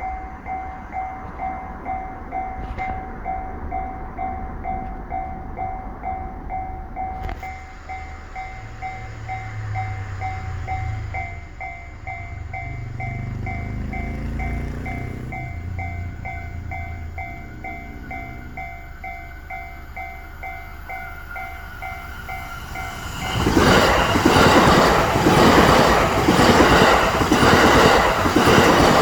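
Japanese railway level-crossing warning bell ringing in a steady, evenly repeating two-tone ding-ding. About 23 seconds in, a Joban Line train passes loudly over the crossing, its wheels clacking rhythmically on the rail joints.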